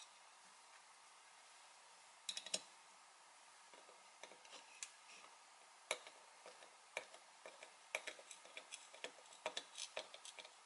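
Faint clicks and ticks of a small screwdriver turning a small screw into a plastic paddle-shifter linkage piece. A short cluster of louder clicks comes about two and a half seconds in, and quick, irregular ticking runs from about six seconds on as the screw is driven.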